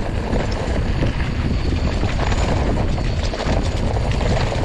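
Wind buffeting the microphone with a low rumble, mixed with scattered rattles and clicks from riding over a rough dirt track.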